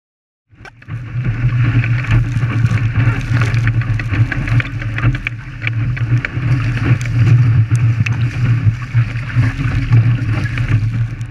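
Wind buffeting the boat-mounted camera's microphone over the rush and splash of water along the hull of a wooden Fireball dinghy sailing fast in a strong breeze, with frequent sharp knocks of spray and chop against the boat. It starts suddenly about half a second in.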